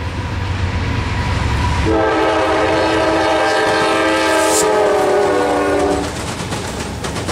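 Norfolk Southern freight train led by GE diesel locomotives passing at speed, engines running and wheels rumbling on the rails. About two seconds in, the lead GE D9-40CW's multi-chime air horn sounds for about four seconds, its lower notes dropping in pitch near the end as the locomotive goes by.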